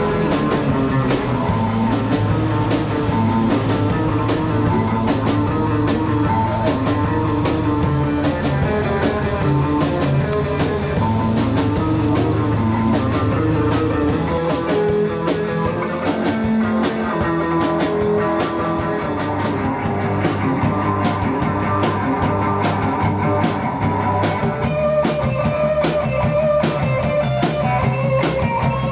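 Rock music with guitars and a drum kit keeping a steady beat.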